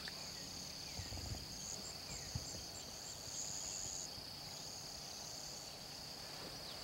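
A steady, high chorus of insects chirring in two continuous tones, the higher one pulsing for a while midway, with a couple of faint low thumps.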